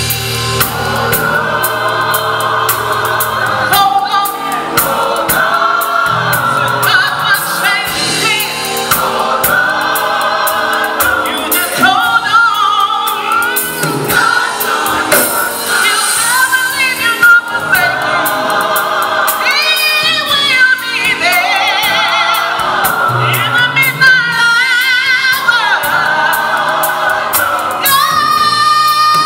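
A gospel choir singing with live accompaniment, a female soloist leading on a microphone above the full choir, her voice wavering through high runs in the second half.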